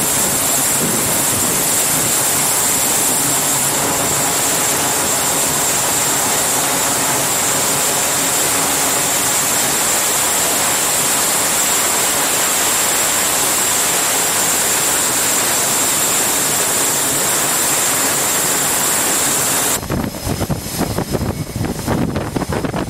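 Twin Allison T56 turboprop engines of a C-2A Greyhound running on a carrier flight deck: a loud, steady roar with a strong high hiss. About 20 seconds in it cuts off suddenly to quieter, uneven flight-deck noise.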